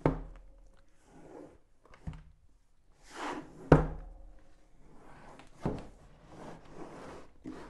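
A cardboard box being slid out of its cardboard sleeve and handled on a wooden tabletop: sliding and rustling of card with a few dull knocks, the loudest about halfway through.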